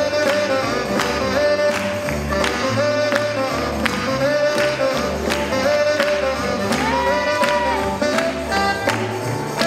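Up-tempo swing jazz music with a steady beat.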